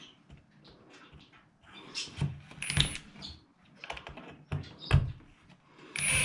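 Irregular knocks and clatter of tools or building materials being handled in a small room, then a power drill starts up right at the end.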